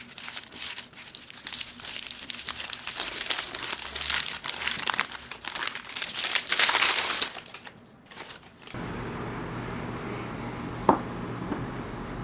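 Baking paper crinkling and rustling as it is unwrapped from a log of Oreo-and-chocolate mixture, for about seven seconds. Later, a kitchen knife slicing the log taps once on the wooden cutting board.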